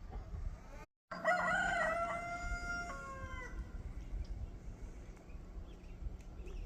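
A rooster crows once, starting about a second in. It is a single cock-a-doodle-doo of about two seconds that steps through its notes and drops in pitch at the end.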